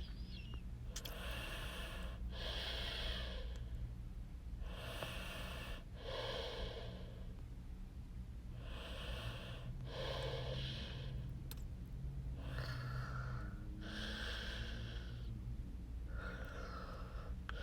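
A man breathing audibly close to the microphone, about nine breaths in and out in pairs a few seconds apart, over a steady low electrical hum.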